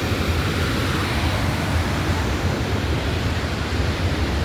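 Steady, loud rush of a large waterfall, Crescent Falls, with a deep low rumble under it.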